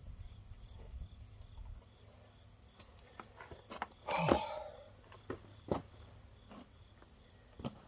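Boots crunching and scuffing on stony dirt, a few scattered steps and knocks, with the loudest scuffle about four seconds in. Insects chirp steadily and faintly in the background.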